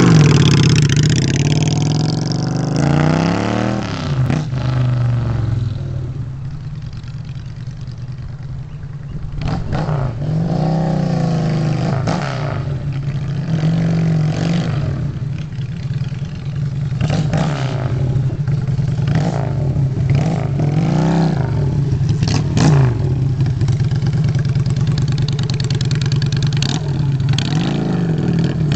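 Custom V-twin bobber motorcycle pulling away hard, its engine revving up and falling back again and again. It grows fainter for a few seconds as it gets farther off, then comes back up with more revs as the bike returns.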